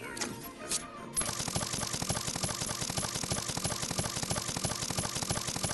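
Cartoon sound effect of a mechanical cyborg arm chopping with its cleaver attachment: a rapid, machine-gun-like rattle of chops, about ten a second, starting about a second in, with a thin high whine over it.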